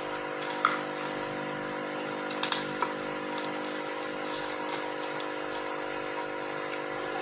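Eating sounds at a meal: a few short, sharp clicks and taps, a cluster of them in the middle, over a steady hum.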